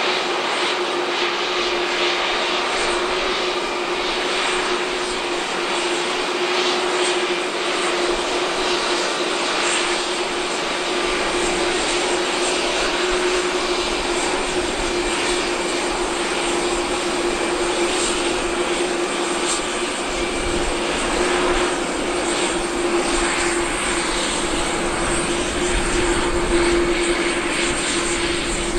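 Boeing 747-8 freighter's four GEnx turbofans running steadily at taxi power as the jet rolls past, a broad jet roar with a steady hum and a faint high whine over it.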